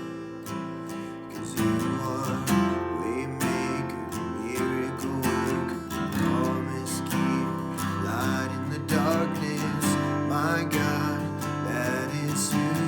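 Acoustic guitar strummed in a steady rhythm, playing an instrumental passage of a worship song.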